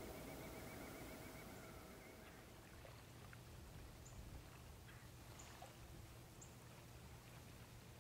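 Near silence: faint outdoor ambience with a steady low hum. A faint rapid trill of repeated notes fades out about two seconds in, and scattered faint ticks and chips follow.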